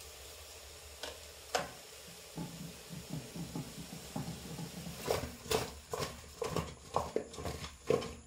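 Boiled cassava pieces knocking about inside an aluminium pot as the pot is gripped and shaken. It begins with two sharp taps, then turns to a soft clatter that grows louder and settles into about two knocks a second.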